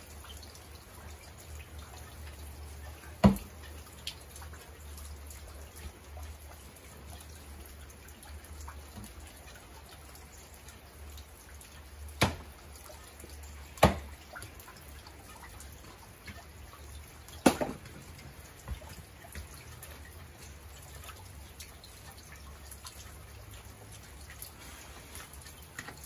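A few sharp knocks of an axe striking wood: one about three seconds in, two close together around the middle, and the loudest a few seconds later. Rain drips steadily throughout.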